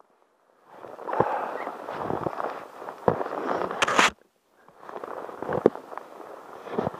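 Fingers handling an action camera: crackling and rubbing on its microphone, with a loud knock just before the hand reaches across the lens about four seconds in. The sound cuts out completely for a moment at the start and just after the knock.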